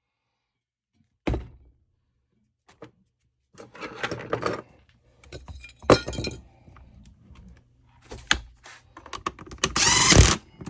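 Scattered knocks, clinks and clatter of metal tools and small parts being picked up and set down on a workbench, in a small room, with the loudest knock about six seconds in and a busy run of clatter near the end.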